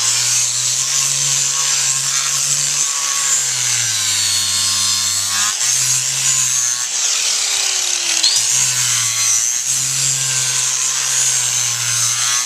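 Handheld electric power grinder sanding down a horse's hoof wall: a steady gritty hiss of the abrasive on hoof horn over the motor's whine, which wavers and dips in pitch for a moment about seven or eight seconds in as it bites harder.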